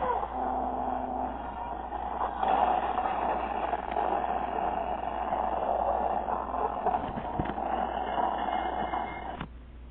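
Toy train running along its track, a steady whir that cuts off about nine and a half seconds in.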